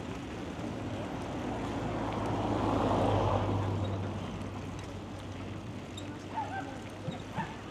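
A vehicle passing by, its noise swelling to a peak about three seconds in and then fading, over a steady low hum. A few short clicks near the end.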